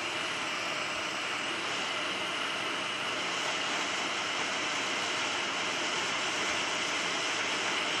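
Hot air rework station blowing a steady, even hiss of air from its nozzle, set to 400 °C and 50% airflow, heating a phone's FPC connector to melt its solder so the connector can be lifted off the board.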